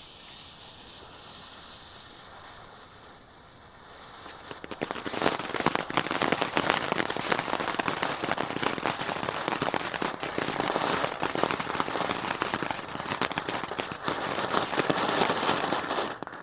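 Firework fountain burning: a steady high hiss for about four seconds, then it breaks into dense, loud crackling. The crackling stops abruptly at the end.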